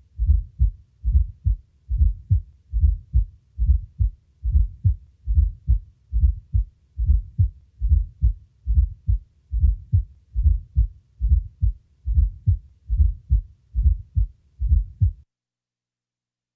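Real heart sounds recorded at the cardiac apex of a 60-year-old man with heart disease: a steady rhythm of low thuds, with a fourth heart sound (S4, atrial gallop) just before each first heart sound. The S4 is a sign of decreased ventricular compliance or increased diastolic volume. The heartbeat stops about fifteen seconds in.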